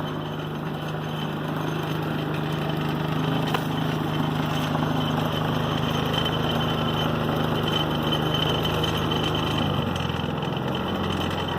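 Predator 3500-watt inverter generator's single-cylinder engine running steadily, its hum stepping down to a lower note about ten seconds in.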